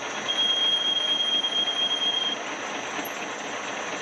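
Twist drill in the tailstock of a 1911 Hendey cone-head lathe cutting through a spinning bushing blank: a steady hiss of cutting and machine running, with a thin high squeal held for about two seconds near the start.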